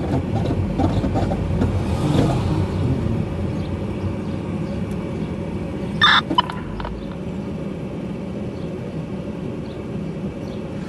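Fire apparatus diesel engines idling as a steady low rumble, with one short, loud, high-pitched blast about six seconds in.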